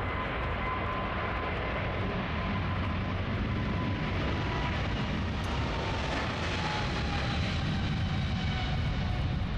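Boeing 777 twin turbofan engines running at takeoff power during the takeoff roll: a steady jet roar with deep rumble, growing slightly louder. A whining tone slowly drops in pitch, and higher whines join it in the second half.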